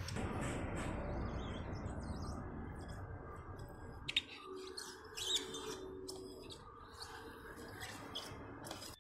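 Small birds chirping over a low steady background noise that fades over the first few seconds, with a couple of sharp clicks about four and five seconds in.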